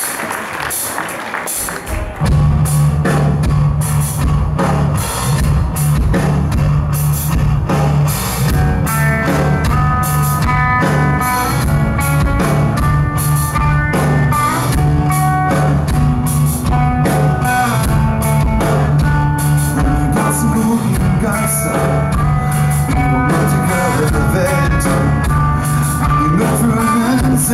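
Live rock band playing a song's instrumental intro: electric bass and drums come in about two seconds in, and an electric guitar line of held notes joins about nine seconds in.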